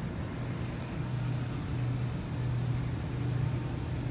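Series 2 Waratah B-set electric double-deck train rolling slowly past, with a steady low hum.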